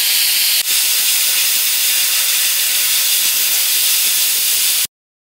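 MIG welding arc on steel plate from a Lincoln Power MIG 210 MP, in short-circuit transfer: a steady, loud, hissing crackle. It dips briefly under a second in and cuts off suddenly near the end.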